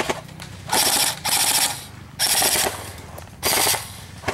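Airsoft rifles firing four short full-auto bursts, each about half a second long, as a fast rattle of shots.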